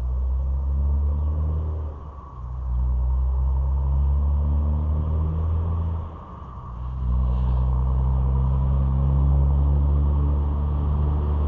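A low, steady engine hum, dropping away briefly twice.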